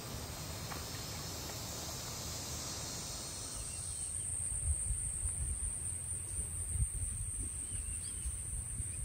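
Insects trilling in a steady high-pitched band that sets in about three and a half seconds in. Under it is a low rumble with soft thumps, footsteps on a wooden boardwalk.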